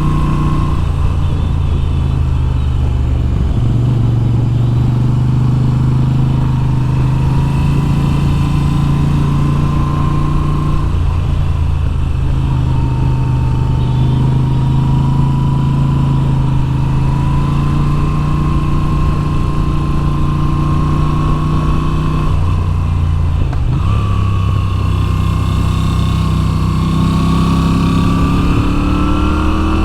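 Moto Guzzi V7's air-cooled V-twin engine running at road speed. The engine note shifts with throttle and gear changes about a second in, around ten seconds in and again around twenty-three seconds in. It rises steadily near the end as the bike accelerates.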